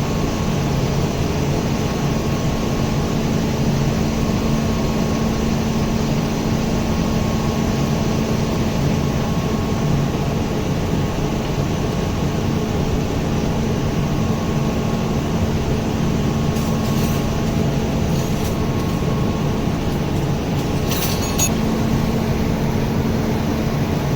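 Steady, loud hum of running machinery with a constant low drone, and a few faint short clicks in the last third.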